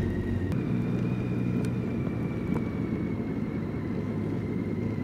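BMW K1600 GT's inline six-cylinder engine running steadily at low town speed, heard from the saddle, with a faint thin high whine above it.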